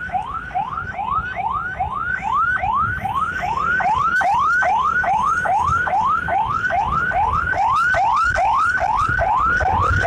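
Ambulance electronic siren in fast yelp mode: a loud, unbroken run of rising sweeps, about three a second, over low road and engine noise.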